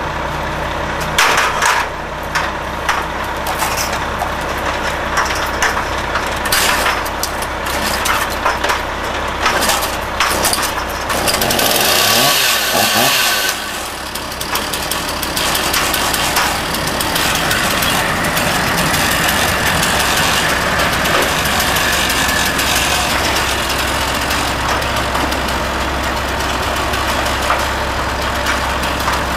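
Steady low running of a fire truck's idling diesel engine, with scattered metallic clanks of aluminum ladders being set against a wall and climbed during the first ten seconds or so, and a brief louder rushing noise about twelve seconds in.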